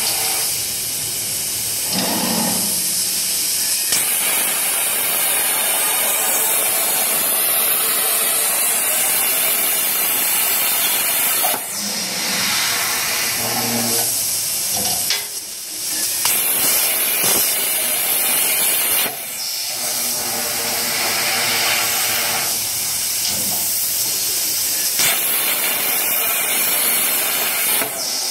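CNC plasma cutting torch cutting a square steel tube: a loud, steady hiss of the plasma arc, which stops briefly about three times around the middle as the arc goes off and restarts.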